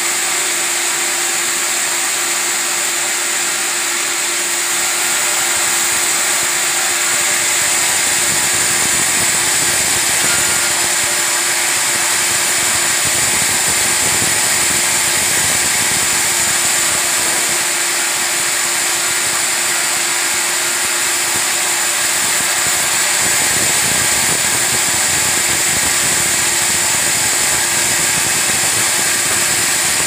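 Sawmill band resaw running and ripping long timber boards lengthwise, a steady high hiss over a constant low hum.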